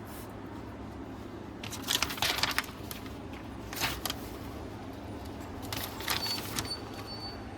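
Sofa cushion and its fabric cover being handled and pulled into place: a few short bursts of rustling, about two seconds, four seconds and six seconds in.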